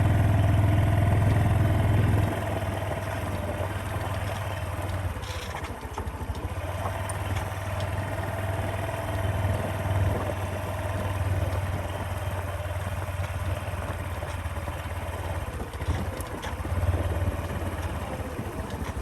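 Small motorcycle engine running steadily, louder for the first two seconds, then settling to a lower, even hum.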